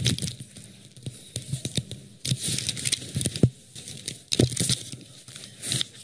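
Close rustling and ripping sounds from clothing and a strap being handled right at a body-worn microphone, in several short bursts, with one sharp click a little past the middle.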